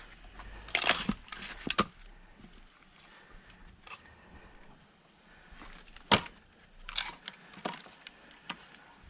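Firewood being split: a handful of sharp knocks and cracks of wood, the sharpest about six seconds in, with a cluster near the start.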